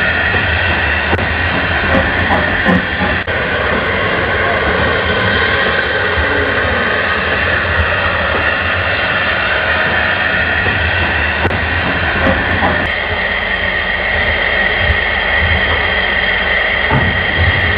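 OO gauge model locomotive running on the layout: a steady electric motor whir and wheel rumble on the track, under a constant hiss and hum, with a few faint clicks. The tone shifts slightly about 13 seconds in.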